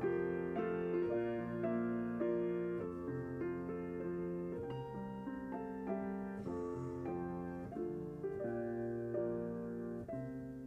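Solo piano playing a slow, gentle piece, one chord and melody note after another.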